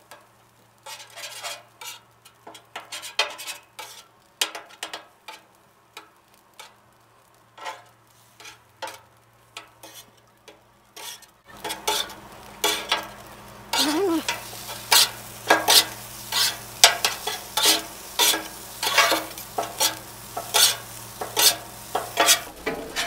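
Metal spatulas scraping and tapping on the steel top of a Blackstone flat-top griddle while fried rice is stirred and tossed, with food sizzling. The scraping is sparse at first and becomes faster and louder about halfway through.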